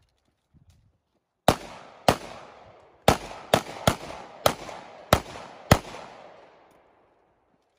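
Eight pistol shots from a CZ Shadow 2 in a practical-shooting stage, fired in quick irregular strings: a pair, then a fast cluster, then single shots. Each is a sharp crack with a fading echo.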